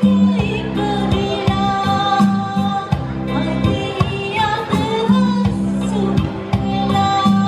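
Live band playing a Sinhala pop song: a woman singing over acoustic guitar, electric bass and keyboard, with a steady beat.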